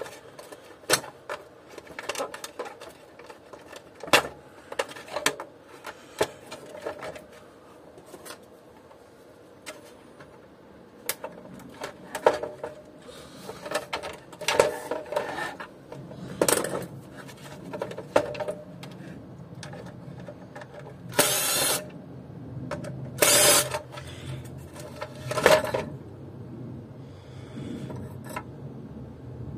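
Plastic housing and parts of a Taurus G1800 vacuum cleaner being handled during disassembly: scattered clicks, knocks and rattles of plastic, with three louder scrapes about two seconds apart near the end.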